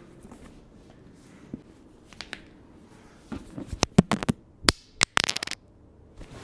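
A quick run of sharp cracks and pops over about two seconds, starting a little past halfway and loudest near the end of the run, after a few seconds of soft rustling: spinal joints cracking under a chiropractic adjustment.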